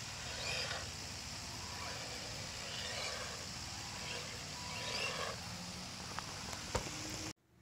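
Small electric motor of a toy RC truck whining in short rising bursts as it is driven, over a steady hiss. The sound cuts off abruptly near the end.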